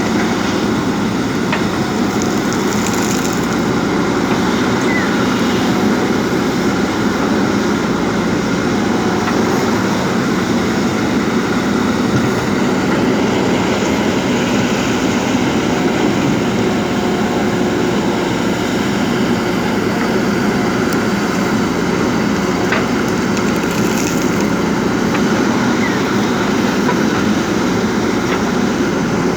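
Diesel engine of a JCB backhoe loader running steadily under work, with a few faint ticks over it.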